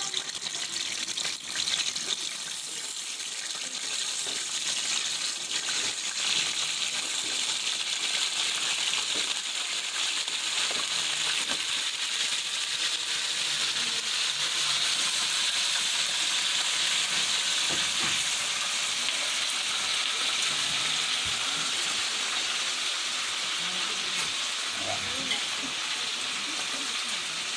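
Chicken pieces, simmered in spices beforehand, frying in hot oil in a pan: a steady sizzle.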